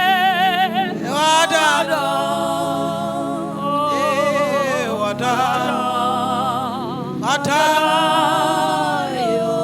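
Gospel worship singing: a single voice holds long notes with a wavering vibrato, phrase after phrase, over a steady sustained accompaniment.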